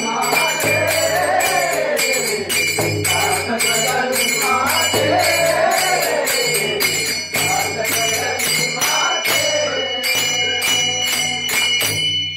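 Devotional bhajan singing, a sung melody carried over jingling percussion that keeps a quick, steady beat.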